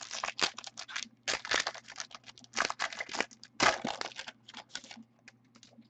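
Foil wrapper of a Panini Valor football card pack being torn open and crinkled by hand: irregular crackling in several bursts for about five seconds, then it dies away.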